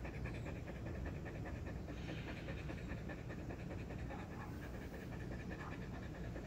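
A husky panting rapidly and steadily, tired out after a lot of running.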